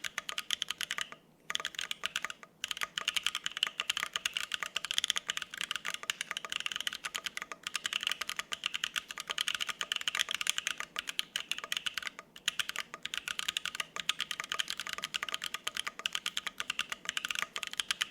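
Fast, continuous typing on a gasket-mount 65% ergo custom mechanical keyboard with lubed U4T (U4 Thocky) tactile switches on an FR-4 plate and GMK double-shot ABS keycaps, no case or plate foam. The typing pauses briefly about a second in and again about two and a half seconds in.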